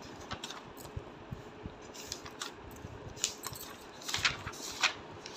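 Pages of a printed textbook being turned and handled: paper rustling with small clicks, the loudest rustles coming about three to five seconds in.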